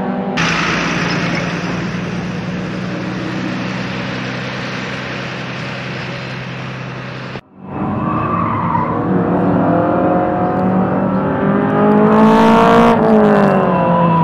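Classic touring car engines on a race circuit. A steady engine drone with hiss runs for the first seven seconds. After a sudden cut, racing cars accelerate past with the engine note climbing in pitch, then it drops sharply at a gear change near the end.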